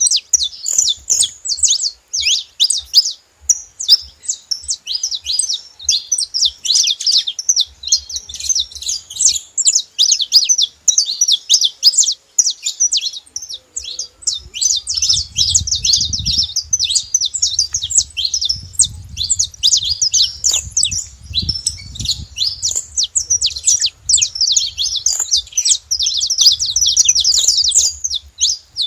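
Saffron finch singing a continuous, rapid stream of high chirping notes. A faint low rumble runs underneath through the middle of the song.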